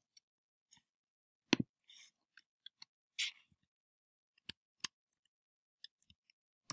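Scattered, irregular sharp clicks of a computer mouse and keyboard as text is typed and edited, with a couple of soft rustling noises between them.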